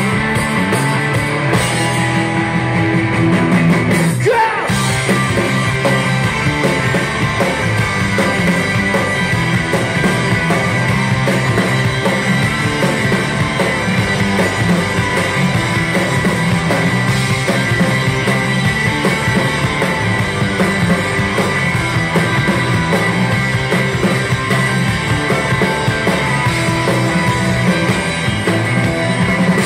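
Live rock band playing loud: electric guitars, bass guitar and a drum kit.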